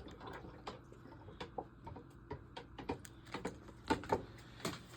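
Light, irregular clicks and taps of food packages being handled and set down on a kitchen counter, with two sharper knocks about four seconds in.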